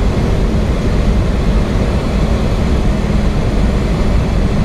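Steady flight-deck noise of a Boeing 737-800 on final approach: an even rush of air and engine noise, heaviest in the low end, with no changes.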